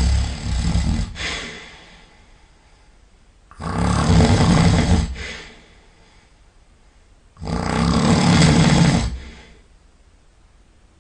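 A sleeping person snoring loudly: three long snores about four seconds apart, each lasting around two seconds, with quiet breathing gaps between them.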